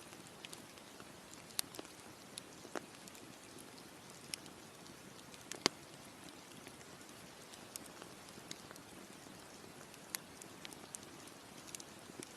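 Campfire crackling: irregular sharp pops and snaps of burning wood over a steady low hiss, with a louder pop about a second and a half in and the loudest about five and a half seconds in.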